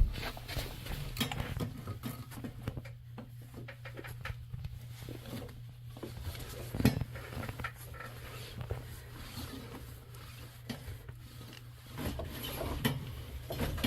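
Small clicks, taps and light metallic rattles of hand work on wiring, as a wire is run in and connected, over a steady low hum.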